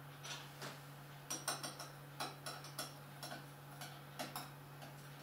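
A spoon clinking and tapping irregularly against a small glass bowl while yeast and sugar are stirred into water, a dozen or so light ticks.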